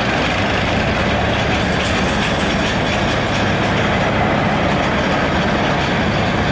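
Farm tractor's diesel engine running steadily at low speed while towing a trailer-mounted wheat thresher.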